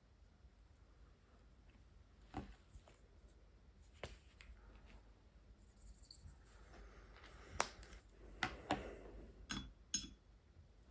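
A handful of sharp clicks and taps from water-based brush markers being handled, such as caps snapping and markers set down on the desk, with a soft scratchy rustle of marker strokes on watercolour paper partway through.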